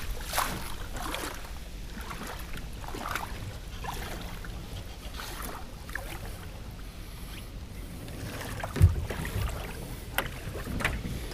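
Small water splashes and lapping against the hull of a small sailing skiff, over a low wind rumble on the microphone. About three-quarters of the way through there is a loud dull thump, then a few lighter knocks, as the boat is handled.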